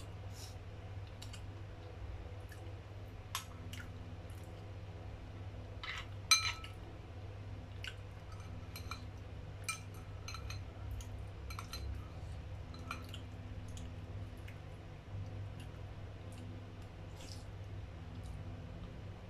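Metal spoon clinking and scraping against a porcelain rice bowl while food is scooped and eaten, in scattered light clicks with one louder ringing clink about six seconds in. A low steady hum runs underneath.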